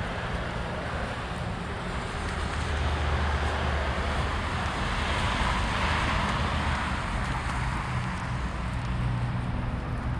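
A car driving past on the street: tyre and engine noise that swells over a few seconds and then eases off.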